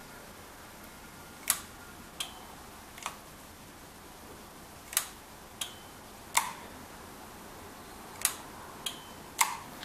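About nine short, sharp clicks at uneven intervals over a faint steady hiss; a few end in a brief high ring.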